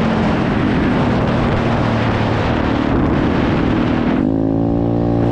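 125cc pit bike's single-cylinder engine running under way, nearly buried under wind rush on the camera microphone. About four seconds in, the wind noise drops away as the bike slows, and the engine's steady note comes through clearly.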